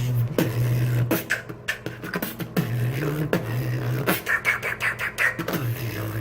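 Beatboxing: a deep, sustained vocal bass line that breaks off and restarts every second or so, cut through by sharp snare-like clicks, with quick hi-hat ticks in the second half.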